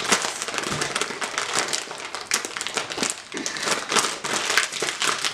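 Plastic snack bag of cheese balls crinkling and crackling irregularly as it is gripped and pulled at the top in an attempt to tear it open by hand.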